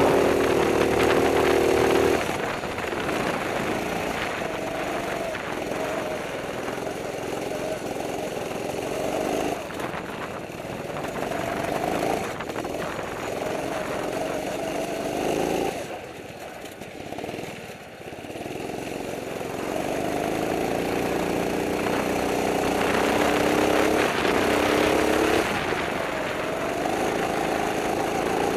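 Kart engine running hard, heard from the driver's seat, its pitch repeatedly climbing and then dropping as the throttle is opened and lifted through the corners. It falls away almost to quiet about 16 seconds in, then pulls up again.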